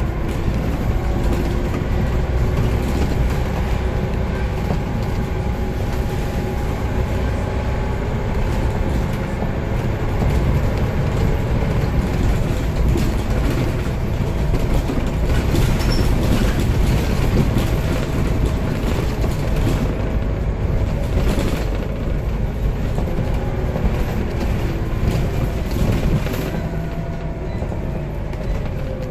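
Scania CN94UB Omnicity single-deck bus under way, heard from inside the saloon: a steady low engine and road rumble with a thin whine that slowly rises and falls in pitch as the bus changes speed.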